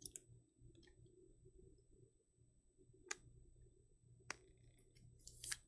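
Near silence with a low steady hum, broken by a few isolated sharp clicks and taps from trading cards being handled, the loudest near the end.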